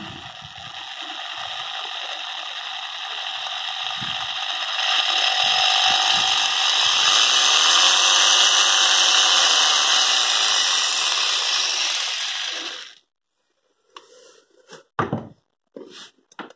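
Hitachi jigsaw (380 W, variable speed) running with no cut, a steady motor and blade-drive noise that gets louder about five seconds in and stops suddenly after about thirteen seconds. A few brief knocks follow.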